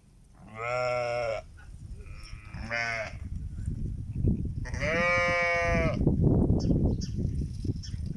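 Goats bleating, three calls with the last the longest. From about halfway through, a loud low rumbling noise runs underneath.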